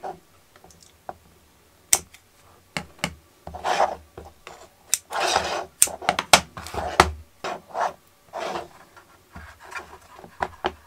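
Scissors snipping a foam-rubber strip, then hands pressing and sliding a plastic boat stand on a cutting mat and setting a plastic model hull onto it: a string of short rubbing, scraping and knocking sounds with sharp clicks in between.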